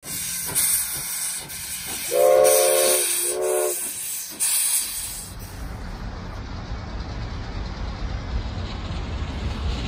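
Steam locomotive hissing as steam vents from its cylinder cocks, with two whistle blasts about two seconds in, a longer one then a shorter one. Then the hiss stops abruptly and a steady low rumble takes over.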